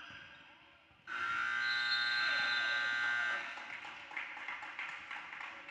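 Gym scoreboard buzzer sounding once, a steady buzzing tone held for about two seconds that starts about a second in and then cuts off.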